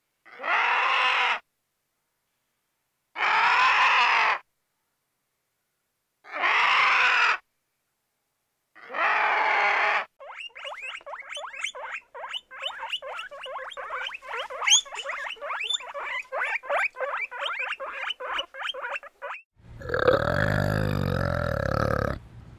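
Four separate animal calls, each about a second long with a rich, rasping tone, spaced about three seconds apart with dead silence between. These are followed by a long run of rapid, high squeaks and chirps from a group of guinea pigs, several a second. Near the end comes a loud, deep, drawn-out orangutan call.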